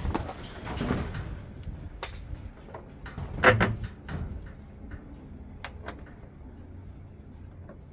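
Parts of a washing machine being handled during disassembly: scattered clicks and knocks, with one louder scrape about three and a half seconds in.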